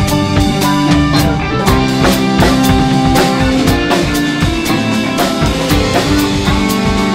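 A live band playing: drum kit with kick and snare hits at a steady beat, over sustained piano, guitar and bass notes.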